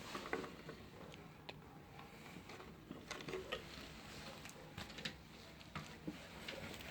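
Faint, irregular clicks and soft rustles of hands handling the items being unboxed.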